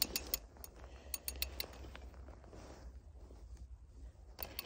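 Light, sharp clicks and ticks in small clusters as ice-fishing line and gear are handled by hand at the hole, over a low steady wind rumble.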